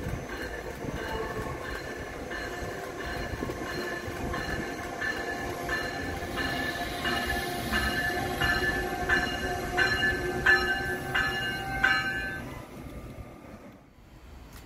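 A train passing, with steady high tones over the running noise and a regular beat of clicks that grows louder, then fades away quickly near the end.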